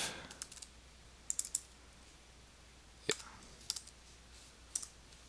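Computer keyboard keystrokes, quiet and scattered: a quick run of three taps about a second and a half in, then single taps, as digits of a number are typed.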